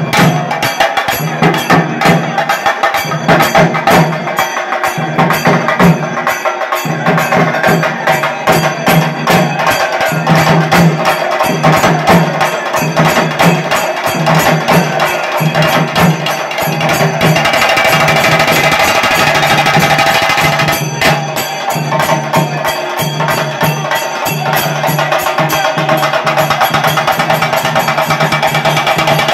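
Loud, fast drumming in a tight, rapid rhythm, with a steady tone running underneath. A little past the middle the beats blur into a steadier wash for a few seconds, then the drumming comes back sharp.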